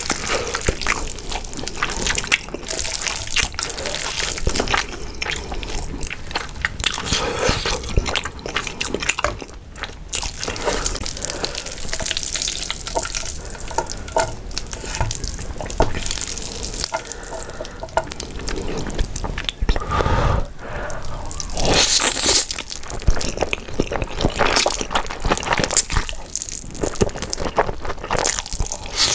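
Close-miked eating of saucy, spicy stir-fried instant noodles: wet chewing, smacking and slurping mouth sounds with small clicks throughout.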